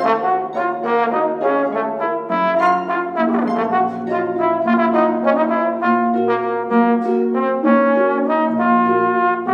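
Trombone and pedal harp playing together: a busy stream of quick notes over long held low notes.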